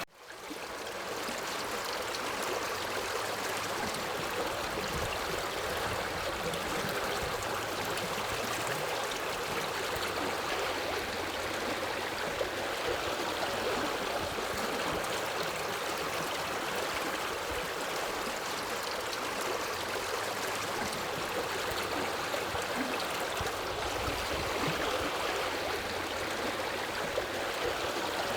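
Forest river running: a steady rush of flowing water. It cuts out right at the start and fades back up within about a second.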